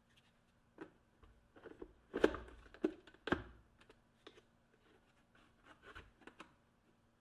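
Irregular light clicks, taps and knocks of small hard objects being handled, with the loudest few knocks about two to three and a half seconds in, over a faint steady hum.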